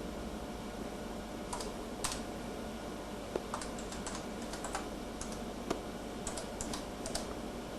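Computer keyboard being typed on: irregular key clicks, starting about a second and a half in, over a steady low hum.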